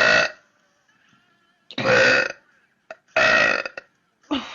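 A woman burping loudly: a long burp cuts off just after the start, then come two separate burps of about half a second each, and another begins just before the end.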